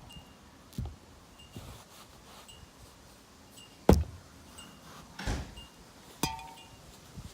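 A few knocks and thumps, the loudest about four seconds in, and a sharp metallic clink with a brief ring near the end, over a faint short high chirp that repeats about once a second.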